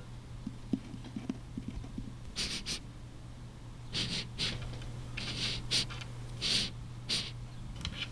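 A cartoon mouse sniffing: a string of about nine short, breathy sniffs, several in quick pairs, after a few faint light ticks.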